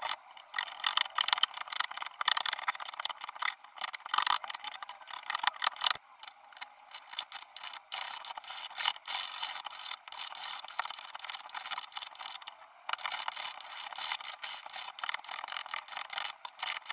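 Rapid short strokes of a two-handled shaving blade cutting a round wooden chair stretcher, a dry scraping rasp on each pull, with brief pauses about six and thirteen seconds in.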